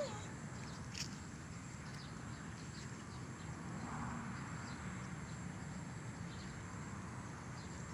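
Quiet rural outdoor ambience: a faint steady high hum with scattered faint chirps over a low background rumble, and a single sharp click about a second in.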